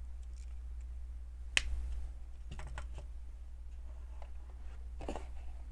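Plastic LEGO bricks being handled and pressed together: scattered light clicks, the sharpest about a second and a half in, over a low steady hum.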